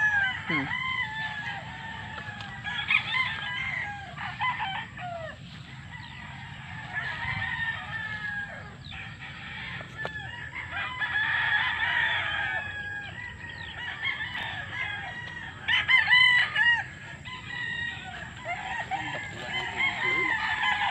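Many gamecocks crowing at once, their calls overlapping, with a few crows standing out louder.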